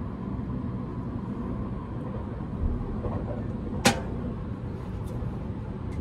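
Steady low rumble of a Seibu Laview limited express train running, heard inside the passenger cabin, with a dull thump a little before halfway and one sharp click just after halfway.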